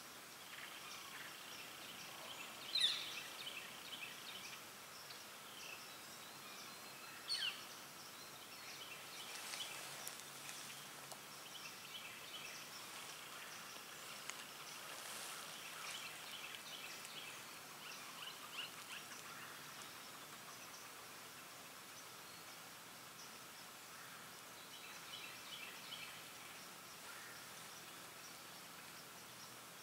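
Faint woodland ambience with scattered high bird chirps. Two short, sharp, louder calls that sweep downward in pitch stand out about three and seven seconds in.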